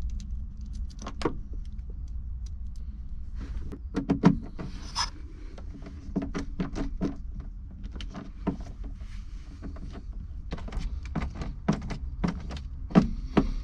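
Battery cables and their metal ring terminals clicking and knocking as they are handled and fitted onto a LiFePO4 battery's terminal posts and bolted down with a screwdriver. The taps come irregularly over a steady low hum.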